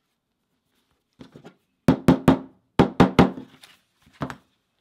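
Small square-faced leatherworking hammer tapping the stacked leather pieces flat on a cutting mat. The sharp taps come in quick runs of three: a faint run, then two loud runs, a few weaker taps, and a last pair near the end.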